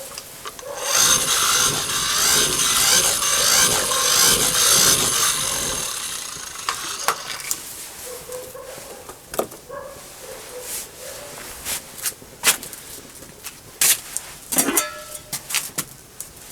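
Cooking-utensil work: a rough scraping or rubbing for about five seconds, then scattered light clicks and knocks.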